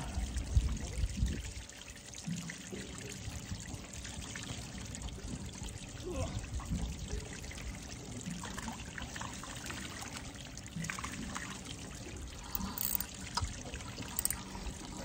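Water lapping and trickling against the side of a small boat, with a couple of knocks in the first second or so.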